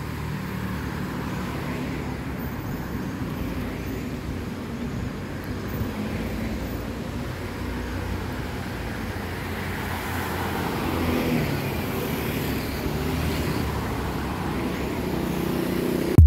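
Road traffic on a wet city street: a steady hiss of car tyres and engines, louder as a car passes about eleven seconds in.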